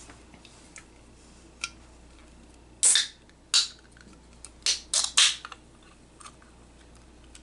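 Handling of a soda can: a quick cluster of about five sharp clicks and crackles a few seconds in, with a few fainter ticks around them.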